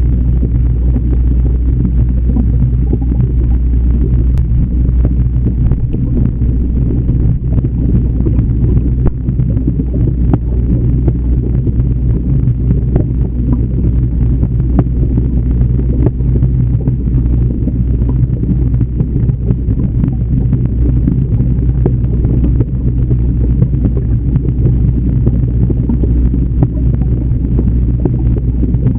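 Steady low hum and water noise of an aquarium, heard from a camera inside the tank, with faint ticks here and there.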